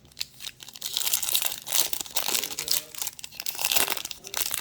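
Crinkling of a cellophane trading-card pack wrapper being handled, a dense crackle of many small strokes that is loudest through the middle.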